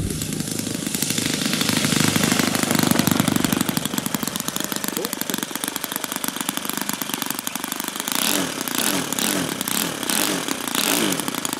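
ENYA R155-4C four-stroke model aircraft engine running at low throttle as the RC plane rolls out and taxis. From about eight seconds in, it is blipped up and down in short, repeated bursts.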